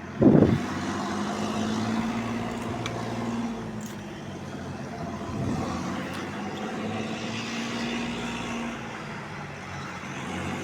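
A motor's steady low hum with a background hiss, and a short loud sound just after the start.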